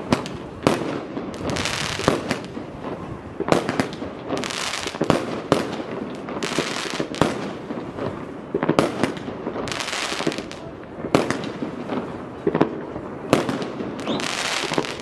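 Fireworks display: a steady run of shell bursts, several each second, each followed by a crackling spray.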